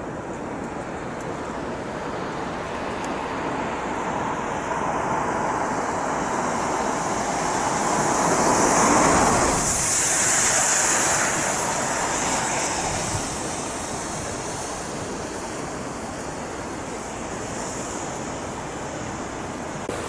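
A vehicle passing on a wet road: the hiss of its tyres on the wet surface swells slowly to a peak about nine seconds in, then fades.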